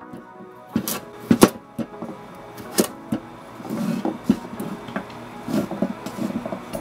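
Chef's knife cutting through kabocha squash on a wooden cutting board: about six sharp knocks of the blade hitting the board in the first three seconds, then a softer scraping as the pumpkin chunks are pushed across the board by hand. Light guitar music plays underneath.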